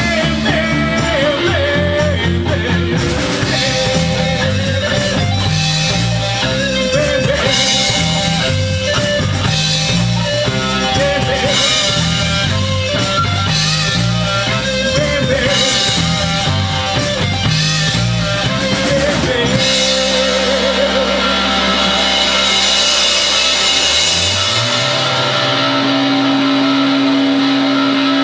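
Rock band playing with electric guitar, bass and drum kit. About two-thirds of the way through, the drum beat stops and the band holds long sustained chords over a steady low note.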